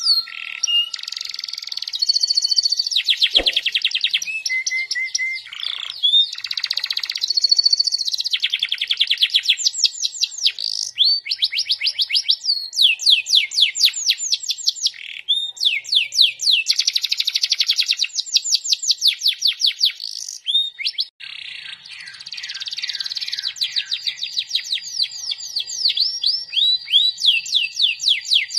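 Domestic canary singing a long, varied song of fast trills, runs of rapidly repeated high sweeping notes and short held whistles, with only a brief pause partway through.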